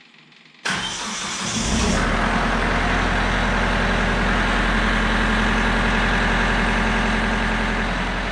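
Kubota LX3310 tractor's three-cylinder diesel engine starting: it cranks and catches within about a second of starting, then settles into a steady, loud idle.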